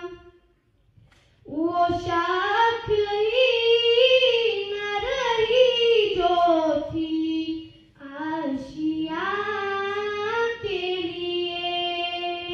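A girl singing a naat solo into a handheld microphone, with no instruments. After about a second and a half of quiet she sings two phrases with a brief break between them, ending on a long held note.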